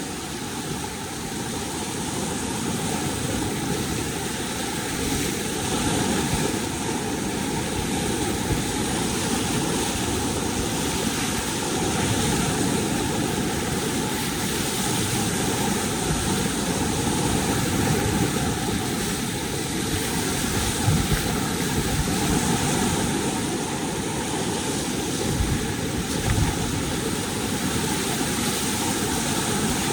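Steady rushing noise of river whitewater below a dam gate.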